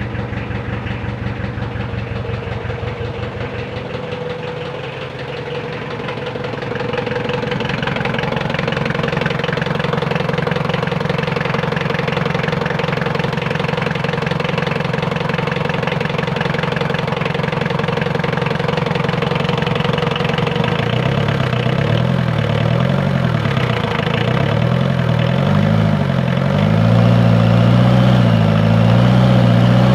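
Mitsubishi 4D56 four-cylinder diesel engine running at idle with its injection pump gear advanced one tooth, the change that made it start despite low compression. It gets louder a few seconds in and again near the end.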